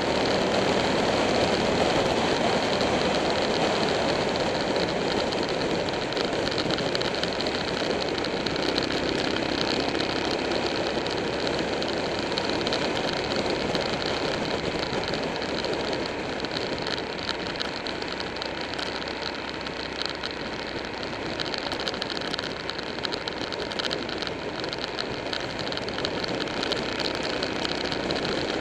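Motorcycle engine running at road speed under a steady rush of wind and road noise. The sound eases off a little about two-thirds through and picks up again near the end.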